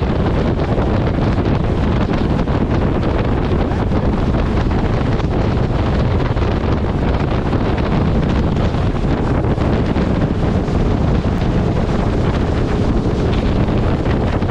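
Steady wind buffeting the microphone on a motor launch under way, with the rush of water and the boat's engine beneath it.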